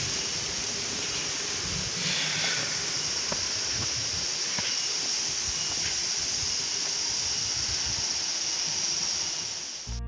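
Steady rushing hiss of a nearby waterfall, with a few faint footsteps on stone steps.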